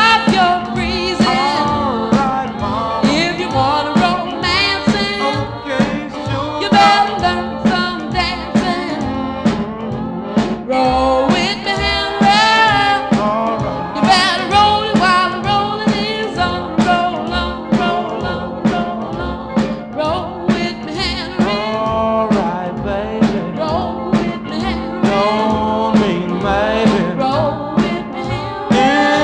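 An oldies pop recording: a lead voice sings with vibrato over a backing band, with a steady sustained low note underneath.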